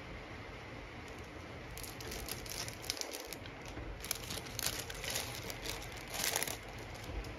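Clear plastic packaging crinkling and crackling as it is handled and pulled open by hand. The crinkling starts about two seconds in, comes in uneven bursts, and is loudest near the end.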